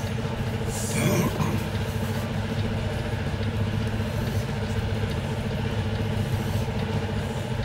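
Kenworth semi truck's diesel engine running steadily at low speed, heard from inside the cab while the truck manoeuvres.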